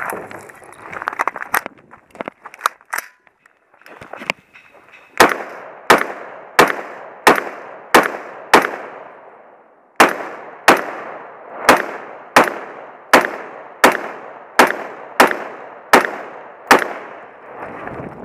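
An AR-style semi-automatic carbine fired in single shots at a steady pace of about one shot every two-thirds of a second: six shots, a short break, then about ten more, each shot with a short echo. A few light clicks and knocks come before the first shot.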